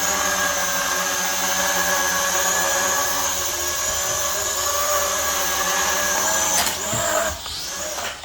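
Camera quadcopter drone's motors and propellers whining steadily in flight. Near the end the pitch shifts and the sound gets quieter.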